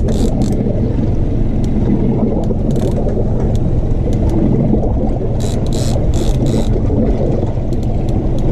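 Outboard motor running steadily, a low drone under wind and water noise. A few short hissing bursts come about five to six and a half seconds in.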